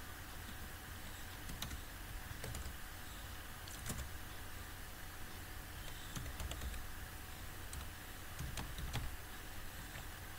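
Scattered keystrokes on a computer keyboard, faint clicks over a steady low hum and hiss.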